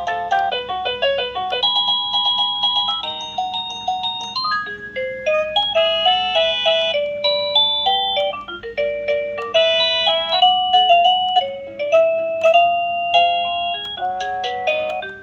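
Electronic musical doorbell playing a melody of short, chime-like notes that follow one another quickly and without pause.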